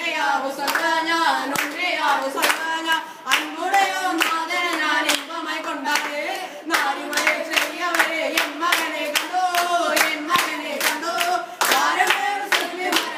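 A small group of young male voices singing a song together, unaccompanied, with hands clapping a steady beat along.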